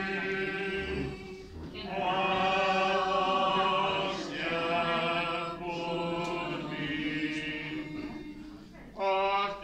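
Voices singing a slow religious hymn without accompaniment, in long held notes with short breaks between phrases.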